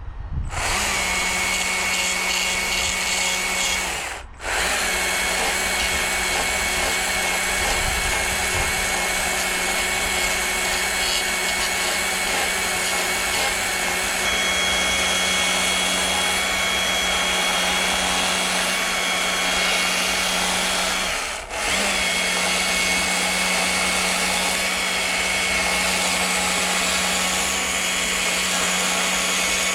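A power tool running at a steady high speed while carving wood, with a constant whine; the sound cuts out briefly twice.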